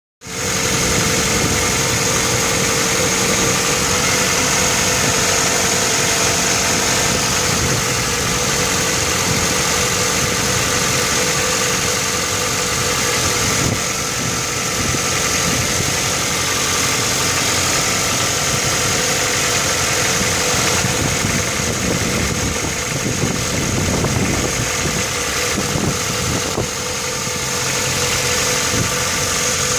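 Ford Focus Mk1's 2.0 Zetec four-cylinder engine idling steadily with a knock (стук) in it.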